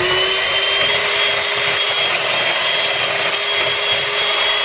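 Electric hand mixer running steadily at speed, its beaters whirring through pancake batter in a bowl, with a steady high motor whine.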